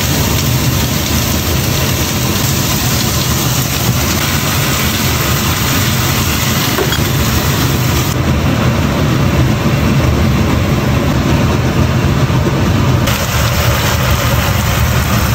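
Kitchen exhaust fan running: a steady, loud hum and rush of air.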